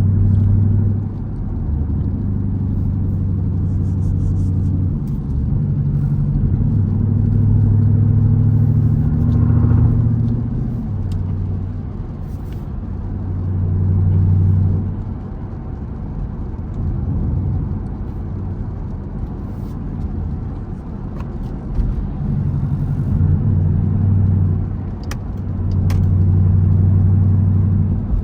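Jeep Grand Cherokee SRT's HEMI V8 running at low speed, heard from inside the cabin: a low, steady-pitched exhaust drone that swells and fades every few seconds without revving up.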